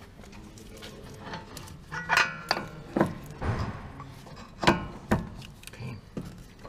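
Metal hand tools and car parts clinking and knocking during suspension work, several sharp clanks, one of them ringing briefly about two seconds in.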